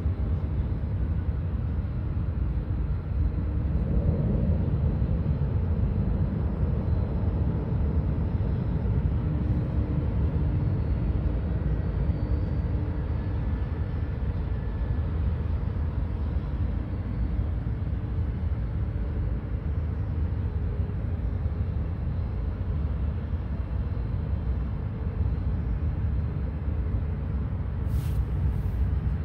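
Steady low rumble of distant aircraft engines running at taxi power, with faint steady whine tones above it. A brief click near the end.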